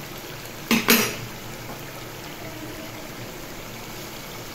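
Chicken masala bubbling and sizzling steadily in a metal cooking pot on high heat. A metal spatula knocks twice against the pot just under a second in.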